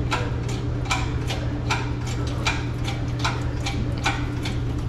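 Engine hoist lifting an engine out of a truck, its mechanism clicking evenly about two and a half times a second over a steady low hum.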